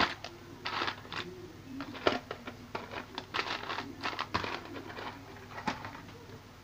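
Rummaging through a stock of small electronic spare parts in search of a replacement electrolytic capacitor: irregular small clicks, rattles and rustling crinkles.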